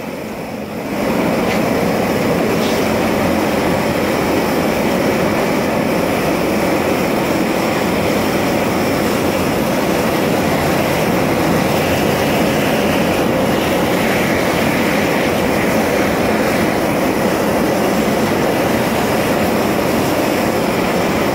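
High-intensity torch running steadily, its flame playing against a composite block, with a constant loud rush of burning gas. It is briefly quieter in the first second, then holds steady.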